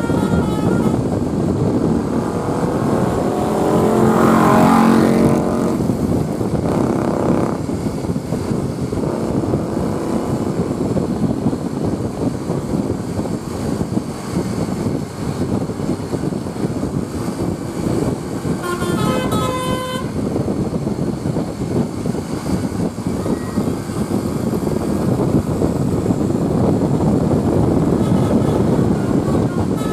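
Steady traffic and bus engine noise, with a loud vehicle passing about four seconds in. A bus's Basuri telolet multi-tone horn plays a quick run of notes about nineteen seconds in, and starts again at the very end.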